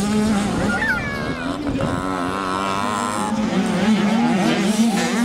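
Several mini motocross bikes' engines revving as they race over the track, their pitch rising and falling with the throttle.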